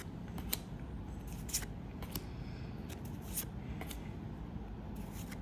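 Hands opening a trading-card pack and handling the cards: scattered short crinkles and clicks of the wrapper and card stock over a faint steady low hum.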